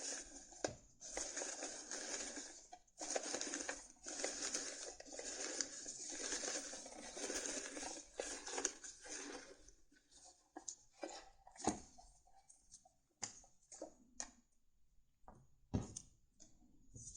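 Tarot cards being handled and shuffled: a dense rustle in spells with short pauses for about ten seconds, then scattered taps and clicks as cards are set down.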